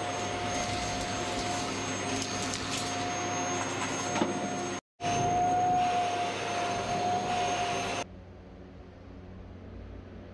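Vacuum cleaner running steadily with a high whine as its hose and floor nozzle clean a tiled floor. A brief gap interrupts it about halfway, and it cuts off suddenly about eight seconds in, leaving a quieter low hum.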